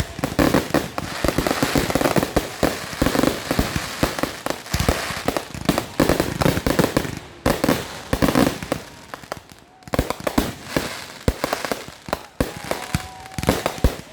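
Fireworks finale: rapid, overlapping bangs and crackling from many shells going off at once, easing briefly a little over halfway through before building again.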